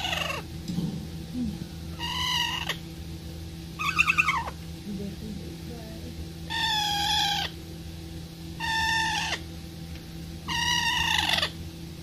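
A parakeet calling, about six drawn-out calls roughly two seconds apart, each under a second long and sliding down in pitch at its end; the third call is shorter and the loudest. A steady low hum runs underneath.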